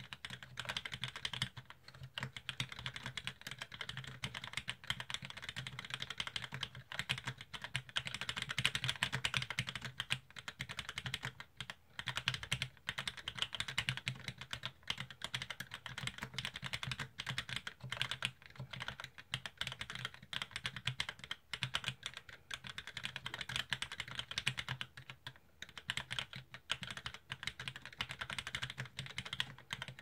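Continuous typing on an LZ-CLS mechanical keyboard with lubed Cherry MX Vintage Black linear switches, KBDLAB 60 g springs and an aluminium half plate. It is a dense run of keystrokes with a couple of brief pauses.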